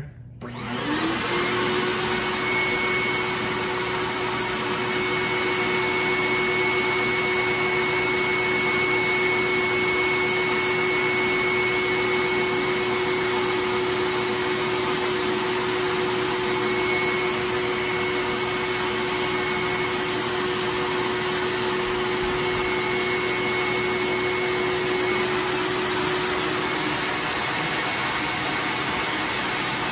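A vacuum-type electric motor switches on, spins up within about a second and then runs steadily and loud, with a high whine over its rushing air.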